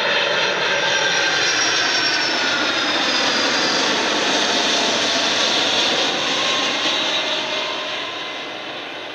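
Four-engine Boeing 747-400 freighter on final approach with gear down, its jet engines giving a loud whine and rush whose tones slide down in pitch as it passes. The sound fades over the last couple of seconds.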